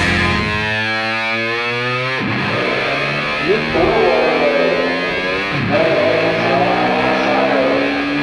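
Background rock music with heavy distorted electric guitar. A held chord rings for about two seconds, then the music moves into sustained chords with a higher lead line over them.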